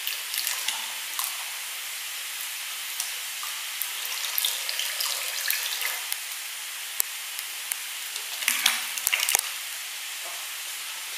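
A wooden stick stirring kitul palm treacle in a pot: scattered light clicks, and a short cluster of louder knocks about two-thirds of the way through, over a steady hiss.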